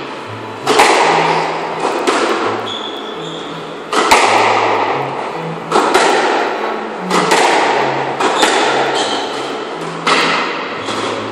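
Squash ball struck back and forth in a rally: about seven sharp smacks off racquets and walls, one every one and a half to two seconds, each ringing on in the hall.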